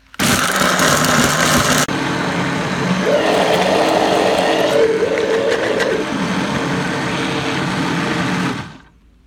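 Electric blender motor running at full speed, grinding dried red chillies and whole spices with water into a wet masala paste. It starts abruptly and runs steadily, then winds down near the end.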